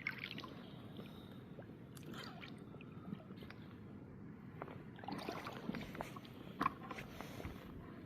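Faint wet squelching and sloshing with scattered light knocks and clicks, the strongest a sharp knock near the end.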